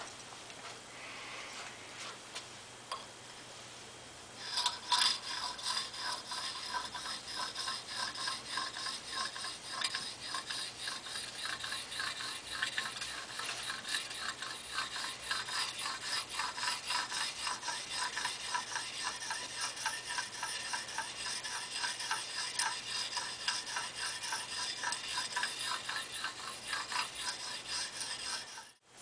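A small hand file scraping in rapid back-and-forth strokes across the steel cheek of a Wetterlings axe head, taking metal off to flatten the cheek; each stroke rasps with a high ringing tone. The filing starts about four seconds in and cuts off suddenly near the end.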